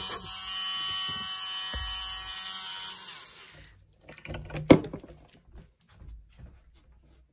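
Small handheld rotary tool with a burr bit running with a steady whine, then switched off about three and a half seconds in, its motor spinning down. Light handling clicks and knocks follow, with one sharp knock a little after four and a half seconds.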